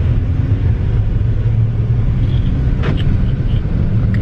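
Steady low rumble of an SUV driving, heard from inside the cabin, with a single sharp click about three seconds in.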